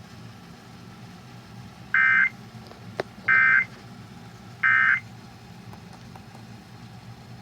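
Emergency Alert System end-of-message data bursts over broadcast radio: three short, identical bursts of warbling two-tone digital data, about a second and a half apart, marking the close of the monthly test. A single click falls between the first two, over a steady low hum.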